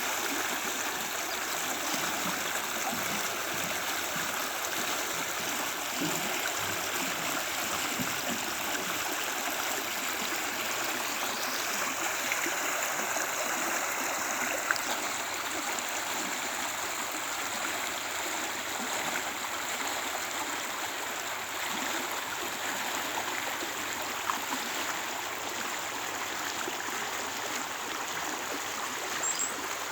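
Creek water flowing steadily over rocks, a continuous rushing and gurgling with a few small splashes.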